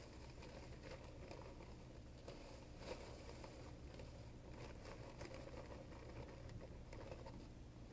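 Faint, irregular crackling and popping from cooking on a charcoal stove, over a low steady hum.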